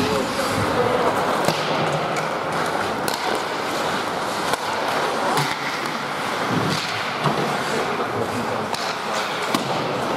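Ice hockey play: skate blades scraping the ice and sharp clacks of sticks on the puck and against the boards, scattered through a steady arena hiss, with some shouting voices.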